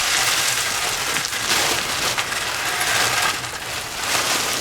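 Sand and small stones shaken in a hand sieve, a continuous gritty hiss and rattle that swells with each shake.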